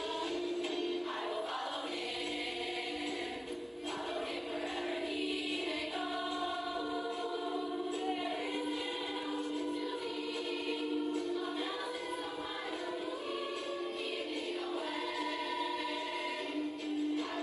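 Gospel choir of girls and young women singing long, held notes that move in pitch every second or two. It is heard played back through a screen's speaker and re-recorded, so it sounds thin, with no bass.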